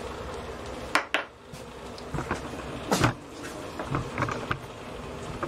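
A few sharp knocks and clunks of things being handled, the loudest about 3 seconds in, with lighter clicks between, over a steady hum.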